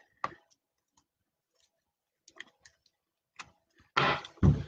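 Trading cards being handled on a table: a few faint clicks and taps of card edges, then near the end a louder rustle with a dull thump.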